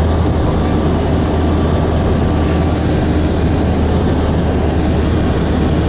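Steady low drone of engine and road noise heard from inside a vehicle travelling at highway speed.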